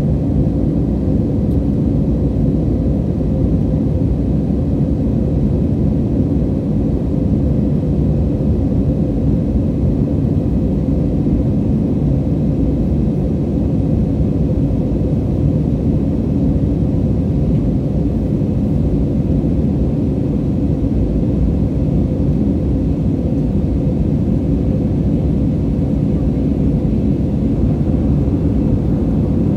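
Steady cabin rumble of an Airbus A320 climbing after takeoff: jet engine and airflow noise heard from a seat over the wing, with a faint steady hum of engine tones above the low roar.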